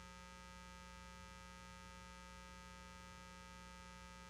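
Near silence with a faint, steady electrical hum made of several steady tones.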